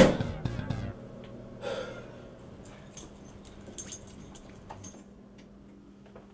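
A man's loud startled gasp, then quieter breathing and a few scattered small clicks and knocks over a low steady hum.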